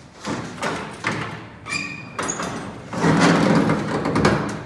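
Metal drop-down side panels of a 1992 Mazda Bongo Brawny mini truck's bed being unlatched and folded down: a series of clunks and rattles with a short squeak near the middle, then a louder clatter over the last second and a half.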